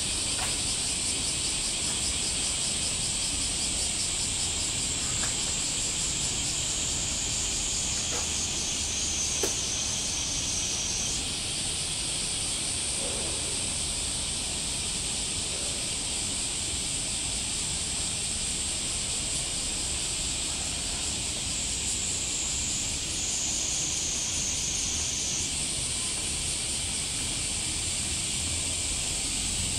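Chorus of cicadas buzzing steadily at a high pitch. Twice the song drops to a lower, pulsing tone for a few seconds, then returns. A single faint click about nine seconds in.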